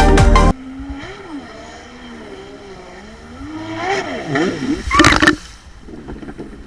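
Kawasaki 1100 ZXi jet ski's two-stroke engine running, its pitch rising and falling as the throttle is worked, louder for a moment about five seconds in, then dropping back to a lower note.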